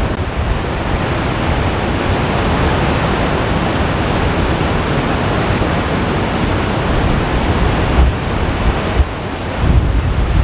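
Ermenek Dam spillway test: two high-pressure water jets, fired from tunnel spillways on opposite sides of the gorge, collide in mid-air so that their energy is broken before the water falls to the riverbed, giving a loud, steady rush of water and spray. Wind gusts on the microphone, most of all near the end.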